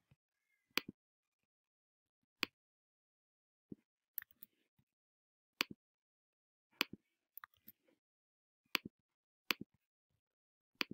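Scattered single clicks of computer keys and a mouse button as an address is typed into a form: about a dozen sharp clicks, roughly one a second, some in quick pairs, with silent gaps between.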